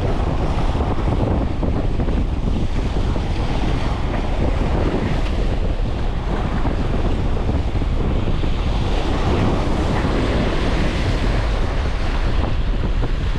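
Steady wind buffeting the microphone over the wash of sea waves breaking close by.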